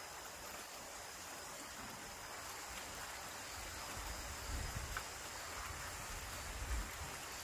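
Faint steady outdoor hiss, with low gusts of wind buffeting the microphone from about halfway in.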